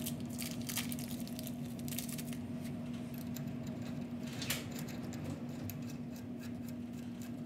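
Small metal clicks and scrapes of the last wheel-bearing nut being turned by hand onto the spindle of a Willys CJ2A front hub, with one sharper click about four and a half seconds in. A steady electrical hum sits underneath.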